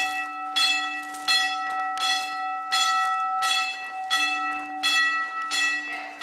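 A bell struck over and over at a steady pace, about three strikes every two seconds, each strike ringing on into the next.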